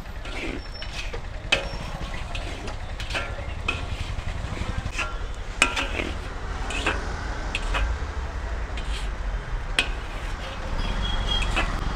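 Perforated iron skimmer scraping and clinking against a large iron kadhai as it stirs hot salt and puffing fryums, in irregular sharp scrapes and knocks, over a steady low street rumble.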